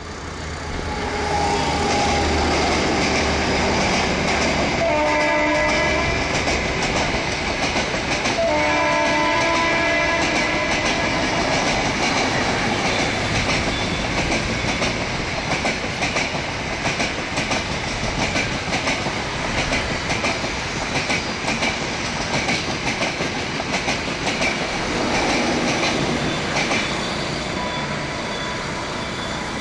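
WAP-7 electric locomotive's air horn sounding in several long blasts as it runs through the station with the Rajdhani Express. After that comes a long, fast clickety-clack of coach wheels over rail joints as the train passes, easing off near the end.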